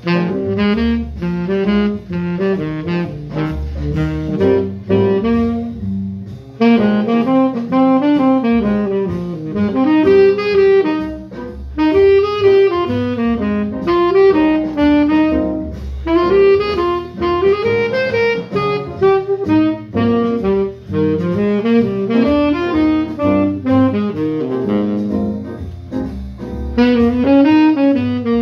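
Tenor saxophone playing a jazz line of quick running notes that rise and fall, with short breaths between phrases.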